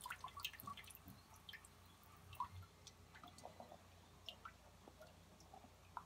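Near silence with faint, scattered drips of water in a Kenmore top-load washer's filled tub, with the fill stopped and agitation not yet begun.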